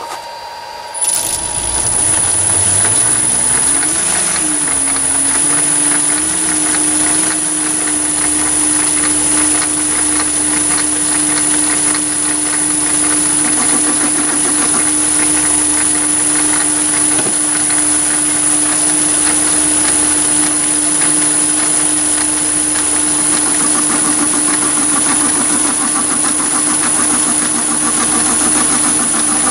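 Chinese 7x14 mini lathe starting up about a second in and then running steadily at about 420 rpm, with a constant high whine and a steady hum. A carbide insert is turning a 316 stainless steel bar.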